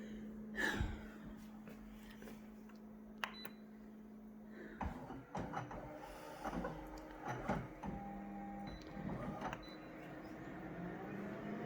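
Photocopier running: a steady hum for about five seconds, then a series of clicks and short mechanical whirrs as the copy cycle gets under way.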